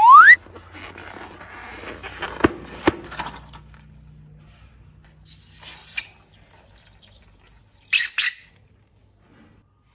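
A short, loud rising squeal, then wet squishing and dripping of slime being squeezed out of a rubber balloon, with a couple of sharp clicks. Fainter handling noise follows, with a brief wet squelch near the end.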